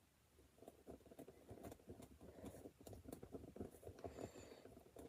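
Near silence with faint, irregular rustling and light clicks of small LEGO plastic pieces being handled.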